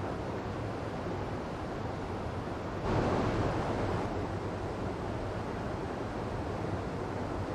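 Waterfall water running in a steady rush, with a sudden louder surge about three seconds in that lasts about a second before settling back.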